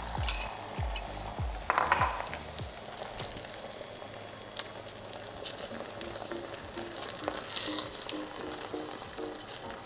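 Beaten eggs sizzling in hot coconut oil in a frying pan, with clicks and scrapes of a silicone spatula stirring them and a louder burst of sizzle about two seconds in. Background music plays along: a low beat in the first few seconds and a repeating melody from about six seconds on.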